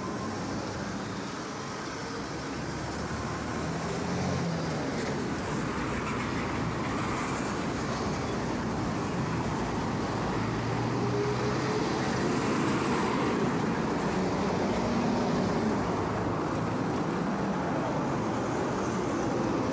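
City street traffic: cars and other motor vehicles running and passing on the road alongside, a steady rumble with engine hum that grows gradually louder.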